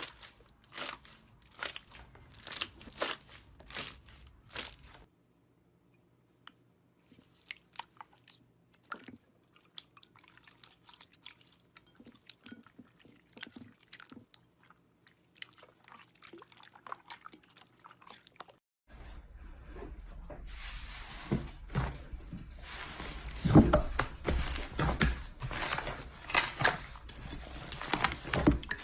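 Slime being squeezed and poked by hand, making rapid crunchy crackles and pops. The crackling comes in three separate stretches, with a short pause about five seconds in, and is loudest over a steady hiss in the last third.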